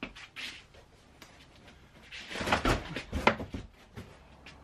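Footsteps and shuffling on a workshop floor, with a short cluster of knocks and scuffs from about two to three and a half seconds in.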